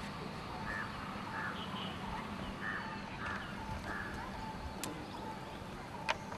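Birds calling outdoors, a series of five short harsh calls over steady background noise, with two sharp clicks near the end.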